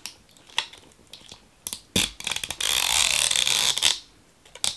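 Fingernails clicking against a plastic toy package's seal, then its plastic seal strip ripping open with a loud rasp lasting about two seconds, followed by a few more clicks.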